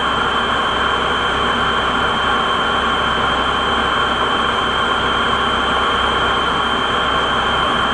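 Waste-vegetable-oil-fired boiler burner running: a steady rushing noise of flame and blower with a constant high tone on top.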